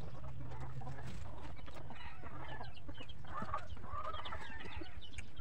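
Chickens clucking, a string of short calls in the middle stretch, over a steady low hum.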